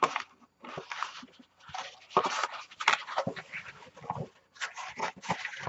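Scored kraft cardstock box pieces being slid, folded and handled on a craft mat: irregular papery rustling and scraping in short uneven bursts.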